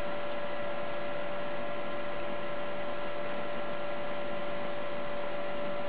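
Steady electrical hum with a constant whine and hiss, unchanging throughout.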